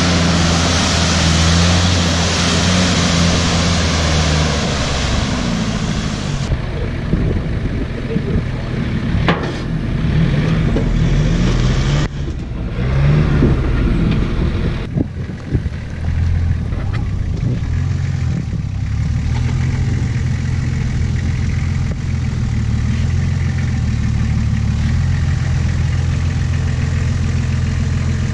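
Four-wheel-drive vehicle's engine running at low speed on a dirt trail, a steady low hum. A rushing hiss sits over it for the first six or so seconds and then cuts off suddenly, with a few sharp knocks later on.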